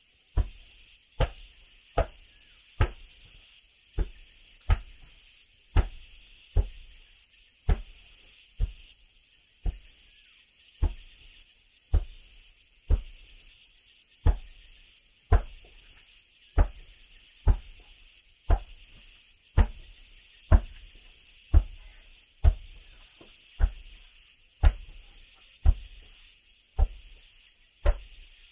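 Repeated heavy blows of a hand tool striking wood, a steady rhythm of about one knock a second. A steady high hiss runs underneath.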